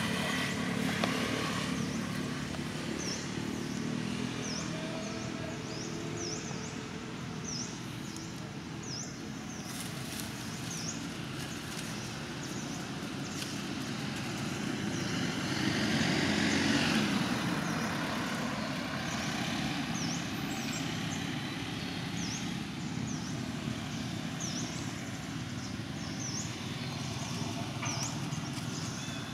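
Outdoor ambience with motor traffic: a vehicle, likely a motorcycle, passes, swelling and fading about halfway through over a steady background rumble. Short high chirps repeat on and off throughout.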